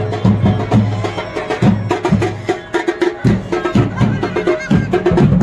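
Music with a drum beat: repeated deep drum hits under a busier melodic layer.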